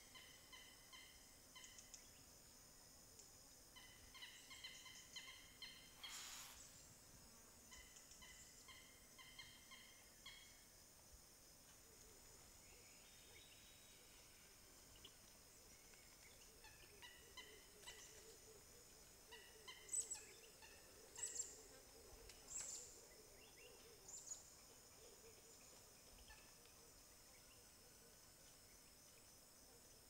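Faint forest ambience: a steady high drone of insects, with a bird in the background giving several bursts of rapid, evenly repeated short notes. A few sharp clicks stand out about two-thirds of the way through.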